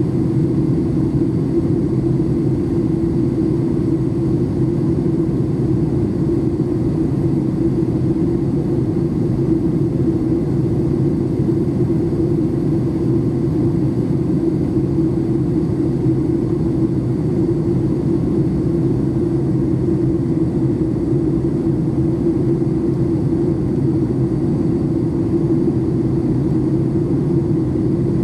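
Steady cabin noise inside a Boeing 737 MAX 8 airliner: a loud, even drone of its CFM LEAP-1B engines and airflow, with a low hum that holds unchanged throughout.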